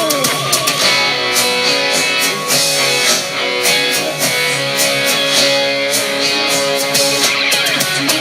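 Instrumental passage of a rock song: guitar playing over a steady drum beat.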